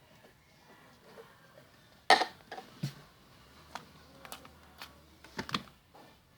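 Hands working slime, giving a sharp loud pop about two seconds in and then a scatter of smaller clicks and pops.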